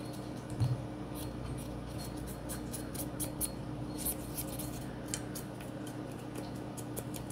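Light scratching and small scattered clicks of a cotton swab being worked along the inside rails of a Glock 19X's steel slide, with a soft knock a little under a second in as the slide is handled.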